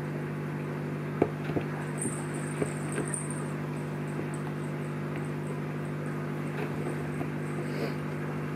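Bengal kittens scuffling and pouncing around a scratcher toy, giving a handful of soft knocks and thumps, most of them in a cluster between about one and three seconds in, over a steady low electrical hum.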